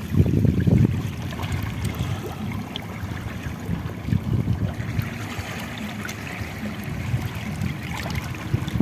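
Wind buffeting the microphone in irregular low gusts, strongest in the first second and again near the end, over a steady wash of shallow water at the shoreline.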